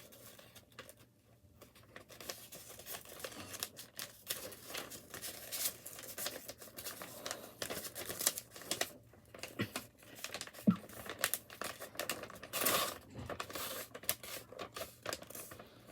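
A sheet of paper being handled and folded: irregular rustling and crinkling with sharp crackles as the creases are pressed, in a small room.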